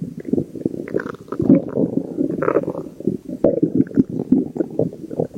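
Stomach growling: a continuous, irregular gurgling rumble, with brief higher squeaks now and then.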